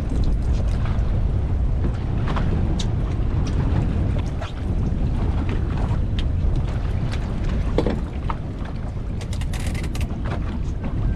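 Wind buffeting the microphone, a steady low rumble, with scattered small knocks and taps and a brief hiss near the end.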